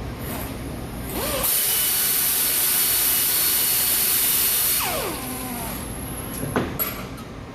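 Handheld power tool, such as a cordless ratchet or drill, spinning up about a second in, running steadily for about three seconds with a high whine, then winding down. A sharp click of metal follows near the end.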